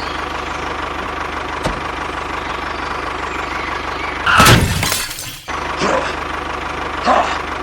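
A small motor runs steadily with a low hum. About four and a half seconds in, a loud clatter like something breaking or falling rises above it, then cuts off sharply.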